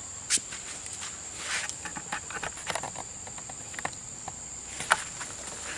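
Steady high-pitched insect chirring over a pond, with scattered short splashes and clicks as a hooked catfish is played at the water's surface. The sharpest click comes about a third of a second in, another near the end.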